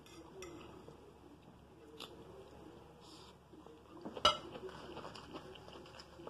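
Soft chewing of scrambled eggs and sausage, with light clicks and one sharp clink of a fork against the plate about four seconds in.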